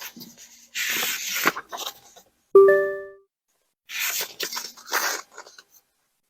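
Short bursts of rustling, tearing noise with a single bright bell-like ding about two and a half seconds in that quickly dies away.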